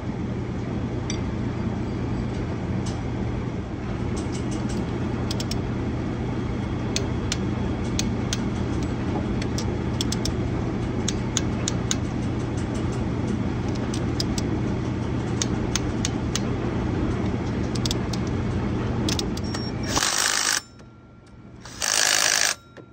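A cordless power tool running bolts down on a water pump's pulley hub in two short bursts near the end, over a steady mechanical hum with scattered small tool clicks.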